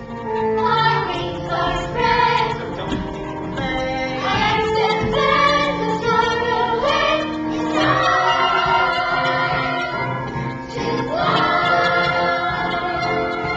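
Musical-theatre song: several voices singing together over an instrumental accompaniment.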